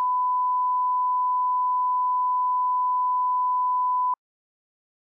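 A 1 kHz line-up test tone that accompanies colour bars, used to set audio levels: one steady pure beep that cuts off suddenly about four seconds in.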